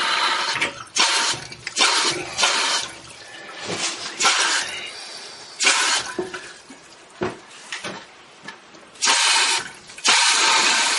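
Water hissing into a toilet tank through its fill valve in short on-off bursts, with longer runs near the end.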